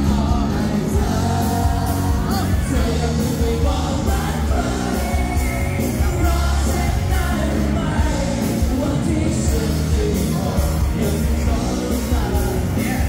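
Live band playing amplified pop-rock through a PA system, with a singer, electric guitar, drums and heavy bass, heard from the dance floor of a large hall.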